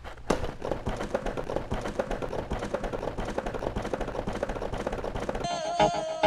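Plastic game cases clattering as a hand shoves through a stack of them: a fast, irregular run of clicks and taps. Music comes in near the end.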